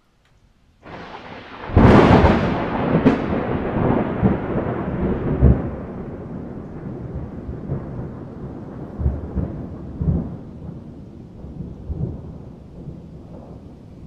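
Thunder: a low rumble builds about a second in and breaks into a loud crack, with a second crack soon after, then rolls on for many seconds with a few swells, slowly fading.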